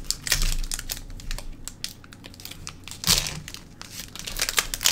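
Foil wrapper of a Pokémon trading-card booster pack being torn open and crinkled by hand, an irregular crackling rustle with louder bursts about a third of a second in and about three seconds in.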